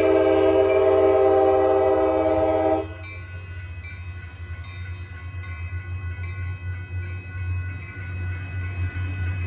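Commuter train's air horn sounding several notes at once, cutting off sharply about three seconds in. It is followed by the train rolling past the crossing, with the grade-crossing bells ringing about twice a second.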